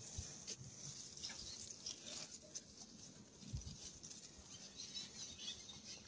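Faint scattered soft knocks and rustles of hands working in loose soil around a freshly dug cassava root cluster, with one duller thump about three and a half seconds in, over a steady faint high hiss.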